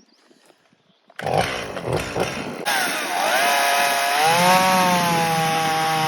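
A two-stroke chainsaw starts up about a second in, sputtering roughly at first, then runs steadily with its pitch dipping and rising again as the throttle changes, ready to cut a crooked log.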